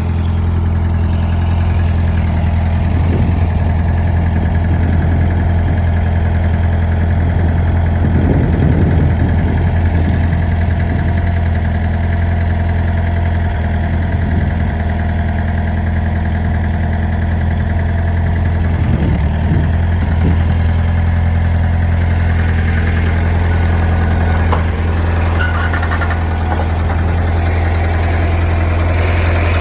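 Engine idling steadily with a knock in it, which the owner cannot tell apart as rod knock or pushrod slap.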